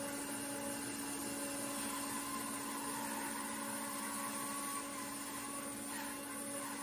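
Laguna 14BX bandsaw with a carbide-tipped blade running steadily as it rips lengthwise through a sycamore log: a constant motor hum under the even noise of the blade cutting green wood.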